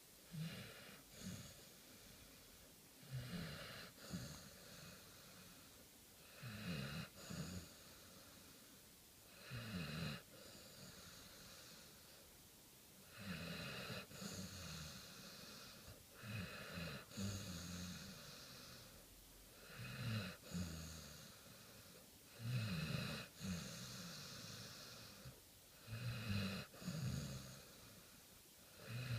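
American Bulldog snoring, a loud breath about every three seconds.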